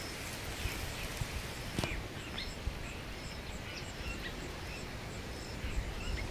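Outdoor ambience: steady background rumble and hiss with faint, short bird chirps scattered through it, and one soft click about two seconds in.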